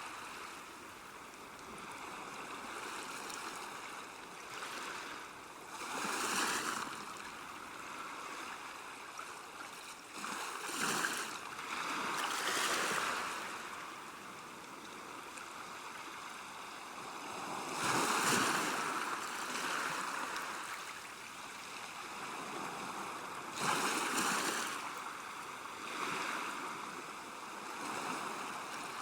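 River water at a bank: a steady rushing hiss that swells and falls back every few seconds, like water washing against the bank.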